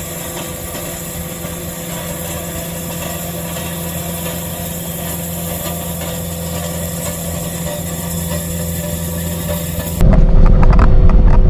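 CAT 259D3 compact track loader's diesel engine running steadily as it drives along with a power rake churning through the gravel, slowly growing louder. About ten seconds in there is an abrupt jump to much louder engine noise heard from inside the loader's cab.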